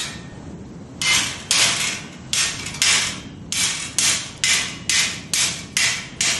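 A series of about eleven sharp strikes starting about a second in, each with a short fading hiss, coming faster toward the end over a low steady hum.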